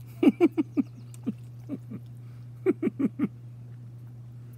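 A man's voice making short, falling hums with his mouth full while chewing pasta: a quick run of four, two single ones, then another run of four.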